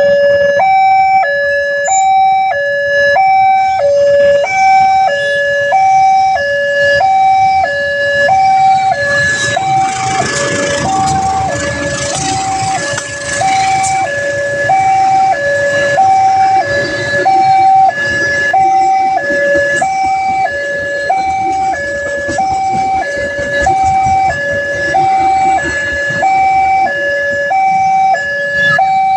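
Railway level-crossing warning siren sounding a steady two-tone alarm, alternating between a lower and a higher tone about every half second. About ten seconds in, a broad rush of noise swells over it for a few seconds.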